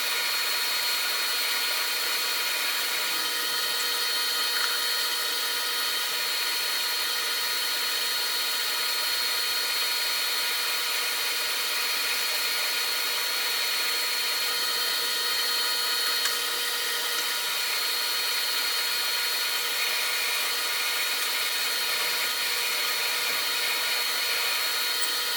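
Metal lathe running slowly while a drill bit cuts a hole through a steel rod: a steady machine whine with several held tones over a hiss of cutting. It stops abruptly right at the end.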